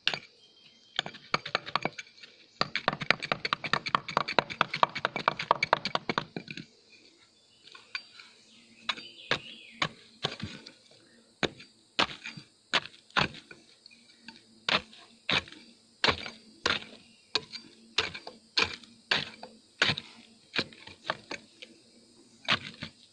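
Chopping into wood with a blade, cutting into a tree trunk to open a stingless-bee nest. A fast flurry of chops lasts a few seconds, then single chops come steadily, about two a second.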